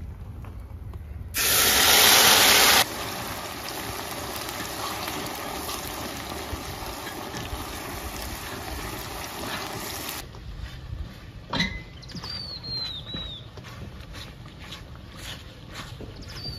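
Milky halwa mixture poured into hot fat in an aluminium karahi: a loud hiss for a second or so, then steady sizzling and bubbling as it is stirred with a wooden spoon. The sizzling cuts off suddenly about ten seconds in, after which a small bird chirps a few short falling notes, twice.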